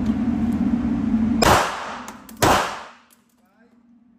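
Two rapid 9mm pistol shots from a Glock 48, about a second apart, each with a short ring-out, over a steady low drone that drops away after the first shot.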